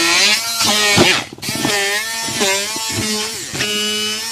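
Hand-held immersion blender chopping cut apple pieces in a plastic bucket, its motor whine repeatedly sagging and recovering in pitch as the blade meets the apple chunks, with a brief drop about a second in.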